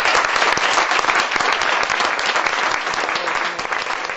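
Audience applauding at the end of a spoken word performance, the clapping slowly dying down toward the end.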